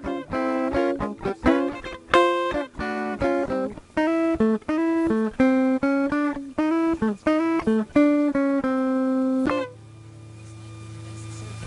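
Hollow-body electric guitar played through a Jazzkat amp: a single-note melody of quickly picked notes that stops about two seconds before the end, leaving a low steady hum and faint hiss.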